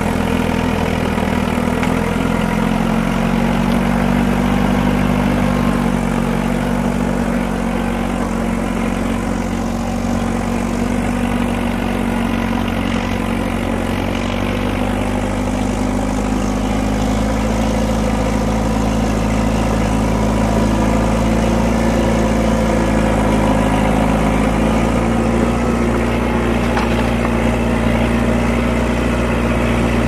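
Tracked bulldozer's diesel engine running steadily at an even speed, with no revving.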